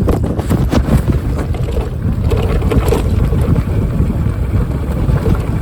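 Strong gusty wind buffeting the microphone of a fat-tire e-bike rider going down a steep gravel hill, mixed with irregular knocks and rattles from the tyres and bike over the rough surface.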